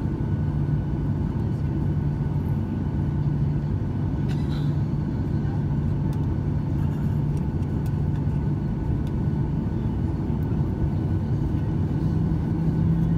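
Boeing 737 cabin noise while taxiing: a steady low rumble with an engine hum at taxi power, heard from inside the cabin. The hum steps up slightly in pitch near the end.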